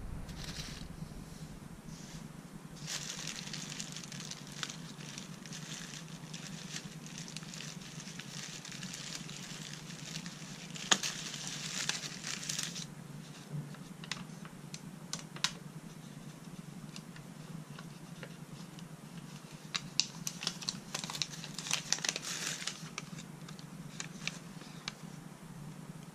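Thin plastic takeout bag crinkling and rustling as it is untied from around a delivery food bowl, in bursts, with sharp crackles about eleven seconds in and again around twenty to twenty-two seconds, over a steady low hum.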